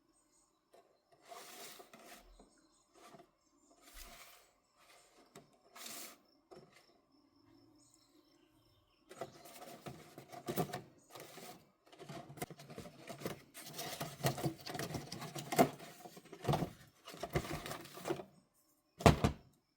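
Kids-meal packaging being handled and opened: short scattered rustles at first, then from about nine seconds in a denser run of crinkling with sharp clicks and crackles.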